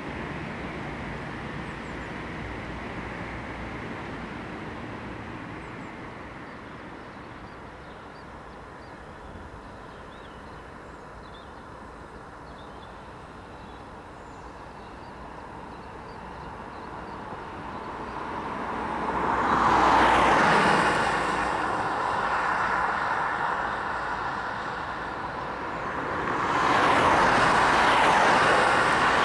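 Cars passing on a road: faint traffic noise dies away, then one car swells up and goes by about two-thirds of the way in, and a second passes near the end.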